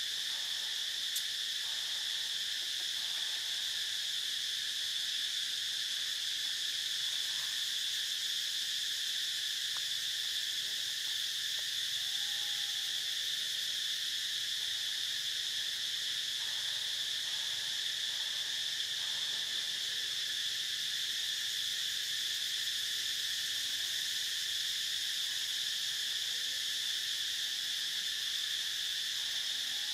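Steady, high-pitched chorus of forest insects droning without a break. A faint short call sounds once a little before halfway.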